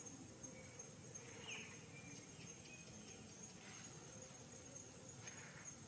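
Faint outdoor ambience of crickets and other insects trilling steadily at a high pitch, with a few faint short chirps about a second and a half in and after.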